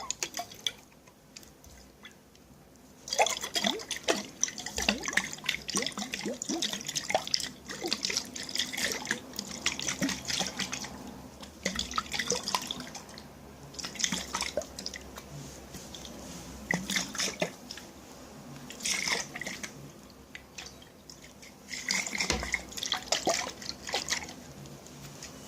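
Water splashing and dripping in a container, in several short bouts after about three seconds of quiet.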